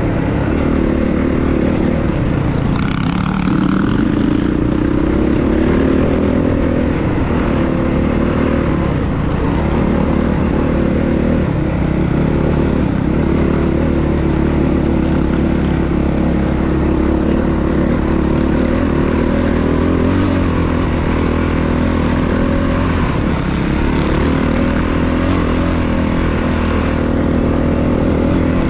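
Honda CRF450RX dirt bike's single-cylinder four-stroke engine running at trail speed, its pitch rising and falling with the throttle and dipping briefly about three seconds in.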